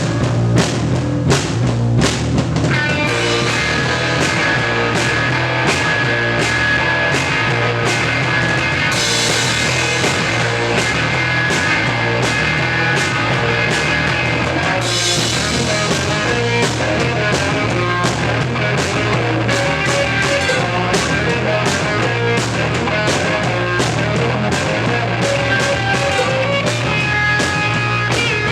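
Punk rock band playing live at soundcheck: loud, distorted full-band sound with a drum kit keeping a steady beat, cymbals brightening the sound twice, about a third and about halfway through.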